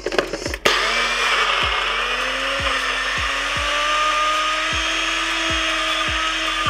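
Countertop blender switched on less than a second in, grinding oats and granola with coconut oil, honey and almond milk for a crust. Its motor speeds up, then runs steadily, and begins to wind down at the very end.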